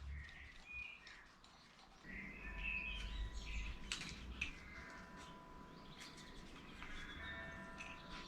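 Small birds chirping in short, quick glides. Underneath runs a faint low hum, with a thin steady whine that sets in about two seconds in.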